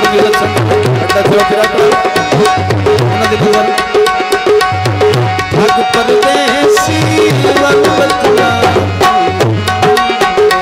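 Instrumental interlude of a live Punjabi folk song. Hand drums play a fast, dense rhythm, with a pair of deep bass strokes repeating about every two seconds, under held melodic notes.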